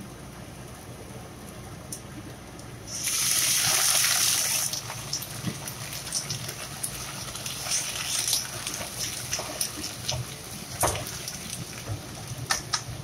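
Sliced luffa sizzling in a hot nonstick frying pan. About three seconds in, a loud rushing hiss lasts nearly two seconds as liquid hits the pan. It settles into lighter crackling, with scattered clicks of the wooden spatula against the pan.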